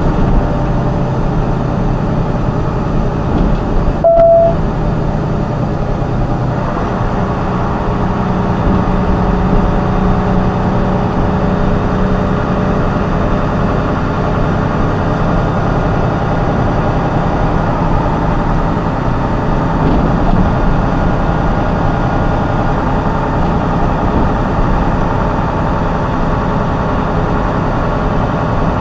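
A vehicle driving along, its engine and road noise steady throughout. A short beep sounds about four seconds in.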